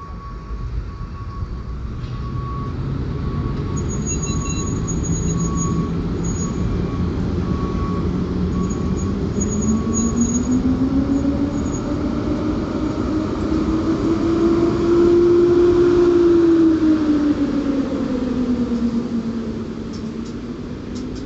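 PKP Intercity EP07 electric locomotive pulling a passenger train away from the platform and past. Its hum rises in pitch as it gathers speed and is loudest as the locomotive goes by, then dips. The coaches rumble past near the end.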